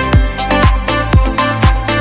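Background electronic dance music with a steady kick drum, about two beats a second, over held synth tones and a bass line.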